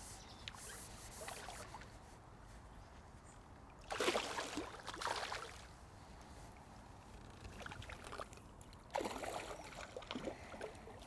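A hooked carp splashing and thrashing at the water's surface as it is drawn over the landing net, in two bouts about four and nine seconds in.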